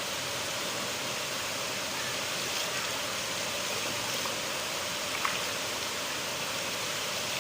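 River water flowing in a steady rush, with a few faint splashes or ticks on top.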